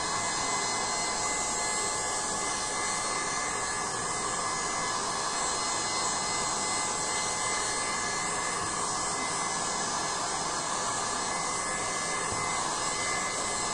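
Handheld heat gun running steadily, its fan blowing a constant rush of hot air with a faint high whine, drying fresh primer on a metal racket frame.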